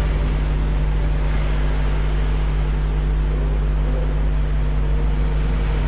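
Steady low electrical hum with an even hiss over it, the constant background noise of the room and its microphone system.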